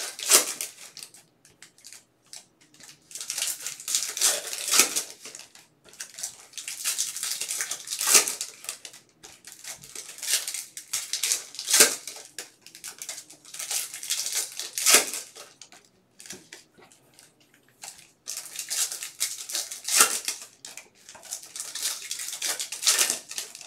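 Foil wrappers of baseball card packs crinkling and tearing as the packs are opened by hand, with the cards handled and sorted. It comes in repeated crackly spells of a second or two with short pauses between.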